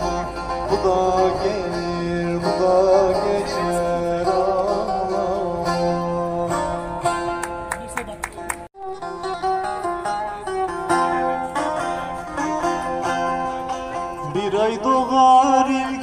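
Background song music with plucked strings. It cuts out for a moment about halfway through, resumes, and a new phrase comes in near the end.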